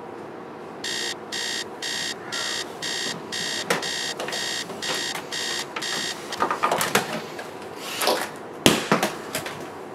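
Digital alarm clock beeping, short high-pitched beeps about two a second, stopping after about five seconds. Then rustling and knocking, with one sharp loud knock near the end.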